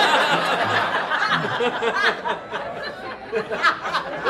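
Audience laughing after a punchline, many voices laughing at once, easing off slightly toward the end.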